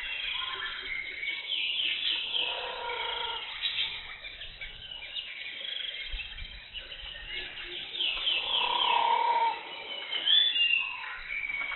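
Several wild birds chirping and calling over one another, with quick high trills throughout and louder, lower calls twice.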